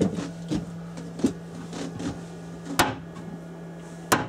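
Wooden cabinet doors and locker lids on a motor yacht being opened and shut: a string of soft knocks and clicks, with two sharp latch-like clicks about three and four seconds in. A steady low hum runs underneath.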